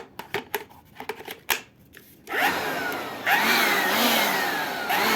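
Cordless battery-powered blower: a few clicks and knocks as the battery is snapped in, then the motor starts about two seconds in and runs with a whine that surges twice. It runs normally on the same battery that will not drive the mini chainsaw, so the battery is good.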